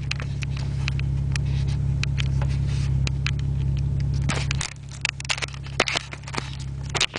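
Mazda MX-6 LS's V6 engine heard from inside the cabin, a steady low drone that drops away sharply about two-thirds of the way through. Scattered clicks and scrapes from the handheld camera being moved run over it.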